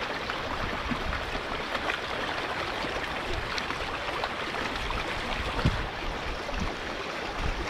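Heavy rain falling, a steady dense hiss of drops with fine patters throughout.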